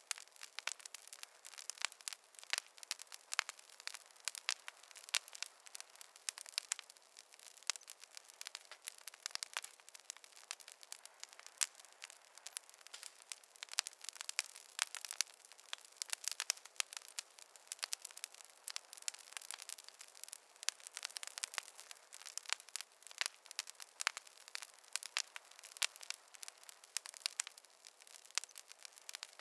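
Campfire crackling: an irregular stream of sharp pops and snaps over a soft hiss, with no low rumble.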